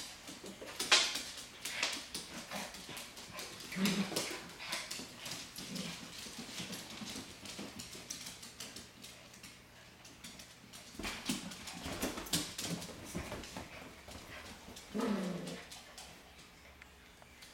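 Small dogs, toy poodles and a Maltese, playing rough over a plush toy: claws clicking and scrabbling on a hardwood floor amid scuffling, with a few short growls, the longest near the end.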